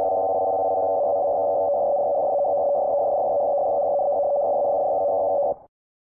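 Slovenian EAS-style emergency alert alarm tone: a loud, steady chord of several electronic tones that starts abruptly. It holds for about five and a half seconds, then cuts off suddenly.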